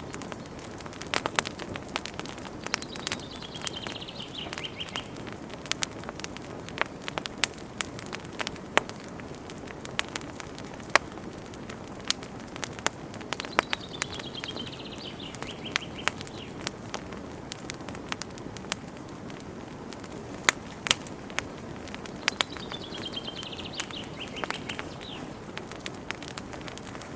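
Wood campfire crackling and popping, with sharp irregular snaps over a steady low hiss. A bird sings a short descending trill three times, about ten seconds apart.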